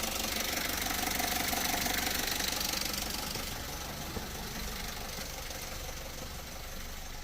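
VW Golf Mk2's 1.6-litre diesel engine running at idle with a steady diesel clatter.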